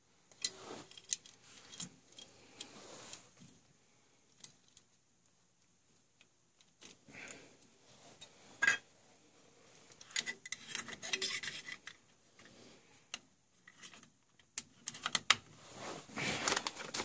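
Scattered metal clicks, taps and rubbing from hand tools and small parts being handled while a circulator pump is wired up, growing busier near the end.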